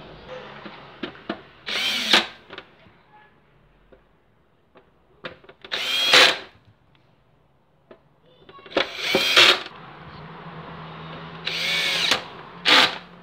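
Handheld power drill running in four short bursts on the screws of a TV's speaker mount, its whine changing pitch within each burst. Small clicks of handling fall between the bursts.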